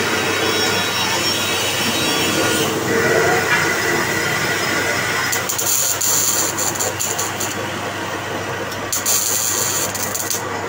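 Manual lathe running: a steady mechanical hum of the motor and gearing with a grinding noise. A higher whine holds for a couple of seconds about three seconds in, and a hiss comes in at about five and a half seconds.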